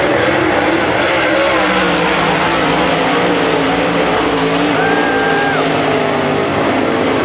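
Dirt super late model race cars' V8 engines running loudly at racing speed. Several engines are heard at once, their pitches wavering up and down as the cars power through the turns.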